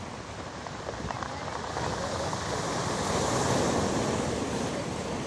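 Storm surf on a pebble beach: a wave swells to its loudest about halfway through, breaking and rushing, then starts to ebb.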